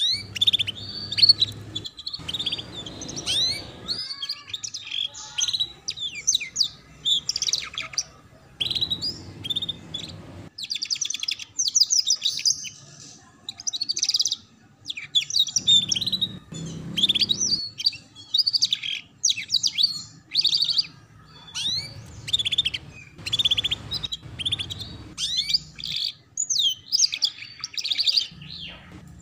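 Domestic canary singing the rapid, chattering 'ngeriwik' song: fast twittering chirps and trills in long phrases broken by short pauses. A faint low rumble comes and goes underneath.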